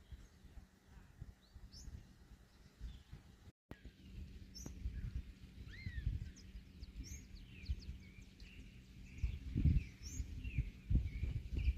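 Birds chirping and calling outdoors, with short rising and falling notes that come thicker after a brief cut about a third of the way in. Low wind rumble on the microphone throughout, in stronger gusts near the end.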